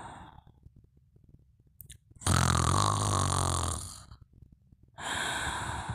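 A sleeper snoring: a loud, low, rattling snore about two seconds in that lasts a second and a half, then a softer breathy breath near the end.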